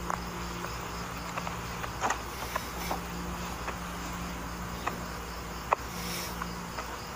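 Crickets chirping in a steady, evenly repeating high pulse over a low steady hum, with a few faint scattered clicks.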